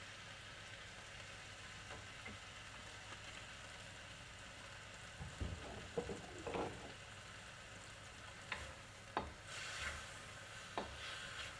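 Chicken and bacon sizzling in a wok while a wooden spoon stirs them, scraping across the pan from about halfway and knocking against the wok several times near the end.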